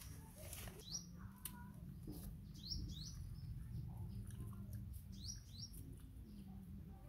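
A small bird chirping: a quick pair of short rising chirps, repeated every two to three seconds, over a faint steady background.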